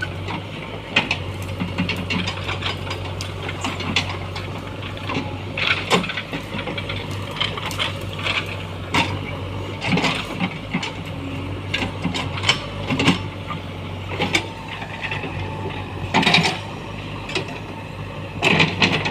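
JCB backhoe loader's diesel engine running steadily, with irregular clanks and cracks from the working machine and the brush it is clearing, and two louder crashes near the end.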